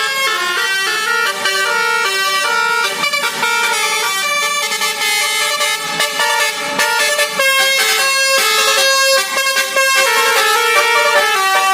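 Telolet basuri musical horn playing a tune: several horn trumpets sound together in steady held notes that step up and down in pitch, changing every half second or so.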